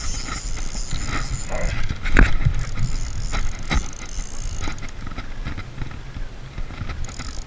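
Fishing reel being cranked to bring in a hooked bass, with irregular clicks and knocks, muffled by a waterproof camera housing.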